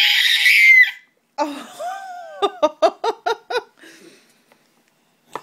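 A toddler's shrill squeal, then a run of about seven quick bursts of giggling laughter.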